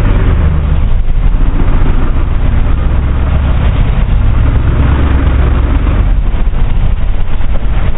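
Early Ford Bronco's engine running at low revs under load as the lifted rig crawls over boulders, a steady deep rumble that rises and dips slightly.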